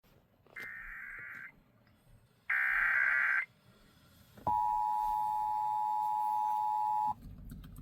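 Two short bursts of SAME digital header data from a NOAA Weather Radio broadcast, a fainter one and then a louder one, each a harsh warbling screech about a second long, followed by a steady alert tone that holds for about two and a half seconds and cuts off suddenly. This is the coded header and attention signal that trigger weather alert receivers during a required weekly test.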